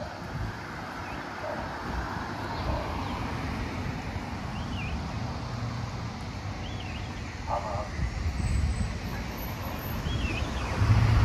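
Street traffic ambience: a steady low rumble of road traffic, with short high chirps every couple of seconds. Near the end a vehicle engine gets much louder as it comes close.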